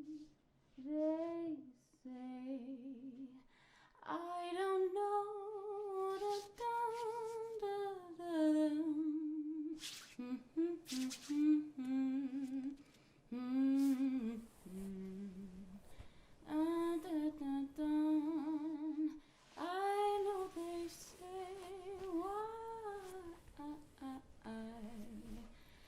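A female voice humming a wandering tune without accompaniment, in short phrases with brief pauses between them, and a few light clicks.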